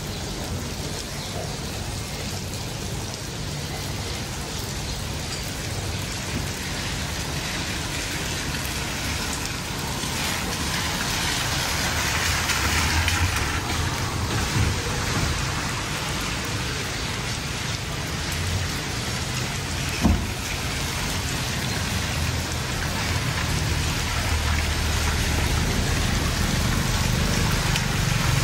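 Steady rain falling on a wet street. About two thirds of the way through there is a single sharp knock, and near the end a car and a motor scooter drive up along the wet road, their engines and tyres growing louder.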